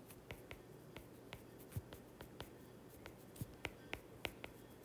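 Stylus tip tapping and scratching on a tablet's glass screen during handwriting: a string of faint, irregular clicks.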